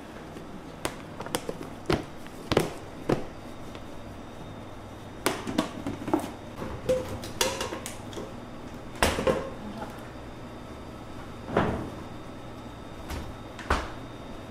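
Doors of a stainless commercial refrigerator opening and shutting, with the knocks of a plastic food tub being handled: a string of separate clunks and knocks, over a steady low hum.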